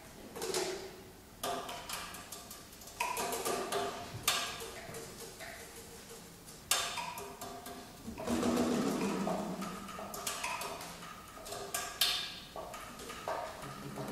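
Saxophone quartet of soprano, alto, tenor and baritone saxophones playing contemporary music: sharp percussive clicks and pops mixed with short held notes, with several sudden loud attacks.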